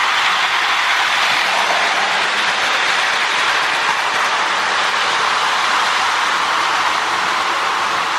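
Marx Commodore Vanderbilt tinplate toy locomotive, fitted with a Marx 1666 motor, running steadily on its track while pulling a string of tank cars: a continuous whirring of the motor, gears and wheels with a faint steady hum.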